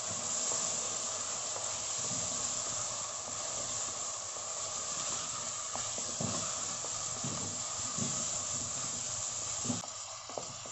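Raw chicken pieces sizzling steadily in hot oil with sliced onions in a frying pan, stirred with a wooden spoon that knocks and scrapes against the pan now and then.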